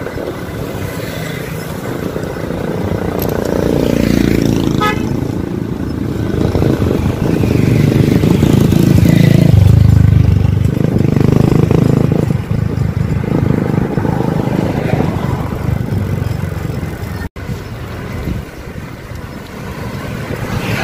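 Road traffic going past: motor vehicles' engines rumbling by, swelling to a loud peak about halfway through as a heavy vehicle passes, then easing off. A brief horn toot comes about five seconds in.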